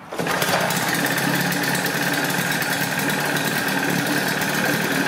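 1984 Johnson 25 HP two-stroke twin outboard engine running steadily on its freshly rebuilt fuel pump, cutting in abruptly at the start.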